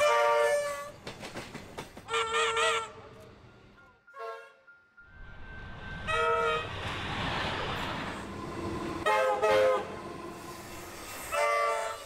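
Comeng electric suburban trains sounding their RVB three-chime air horns: about seven short blasts and toots, including a quick double toot about nine seconds in, with the rush of a train running past between about six and nine seconds in.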